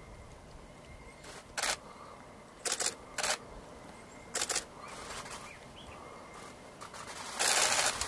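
Rooster's wings and feathers rustling: four short flaps or shakes, then a longer flurry of feather-shaking near the end. No crowing.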